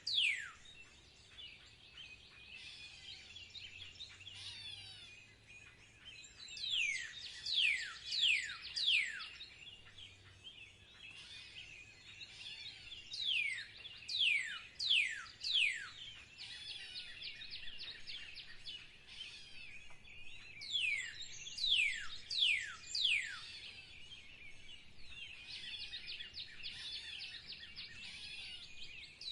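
Songbird singing: groups of three to five clear whistles that each slide sharply down in pitch, alternating with stretches of fast, high twittering warble.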